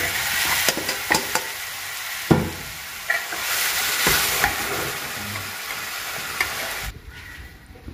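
Marinated chicken pieces sizzling in hot coconut oil in a metal pot as they are tipped in and stirred with a ladle, with sharp clicks of the ladle against the pot. The sizzling drops away suddenly near the end.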